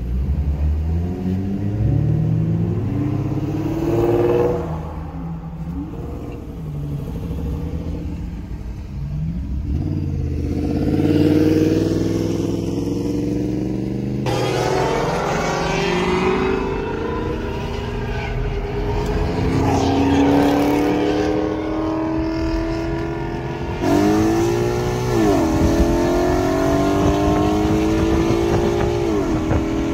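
Car engine heard from inside the cabin, revving and pulling hard. Its pitch rises and falls through the first half, then climbs steadily and drops sharply at upshifts, twice in the last few seconds.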